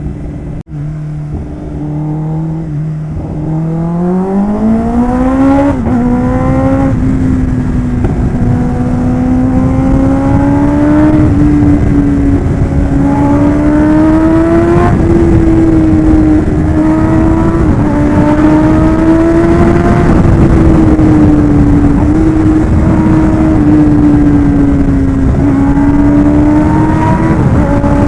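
Kawasaki Ninja ZX-10R's inline-four engine under way: the engine note climbs steadily about four seconds in, then holds at higher revs with small rises and dips, over a steady rush of wind noise. The sound drops out for an instant under a second in.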